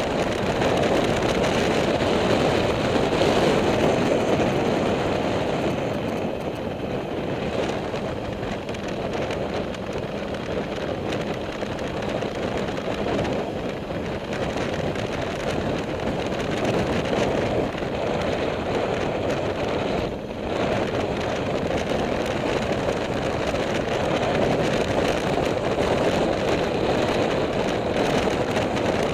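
Steady wind rush on the microphone and road noise from a moving motorcycle, with a brief dip about twenty seconds in.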